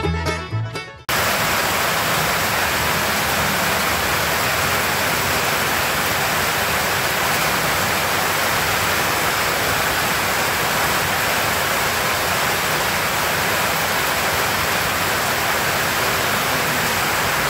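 Steady rain falling on a tin roof, a dense, even hiss. Fiddle-and-banjo bluegrass music cuts off about a second in, just as the rain begins.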